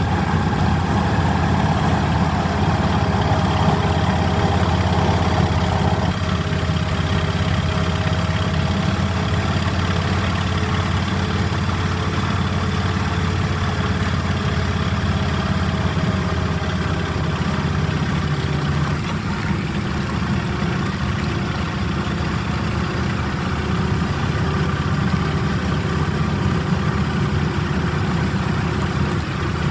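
Motorcycle engine running steadily while riding, with wind rushing over the microphone; it eases off a little about two-thirds of the way through.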